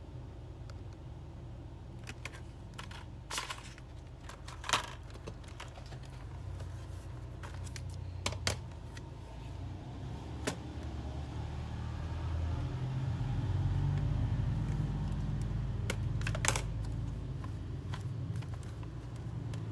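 Scattered sharp clicks and taps of small hard objects being handled, over a low steady rumble that swells in the middle and fades again.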